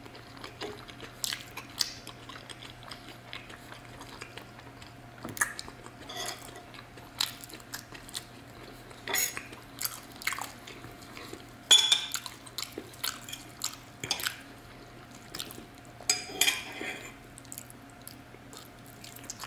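Steel fork and table knife clinking and scraping against a ceramic bowl while cutting roast chicken, mixed with close-up chewing. Scattered sharp clinks come at irregular moments, the loudest about twelve seconds in.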